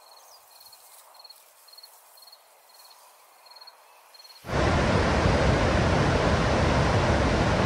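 Faint, regular high chirping of an insect, about two chirps a second. About four and a half seconds in, it cuts suddenly to the loud, steady rush of the Rhine Falls, water pouring over the rocks.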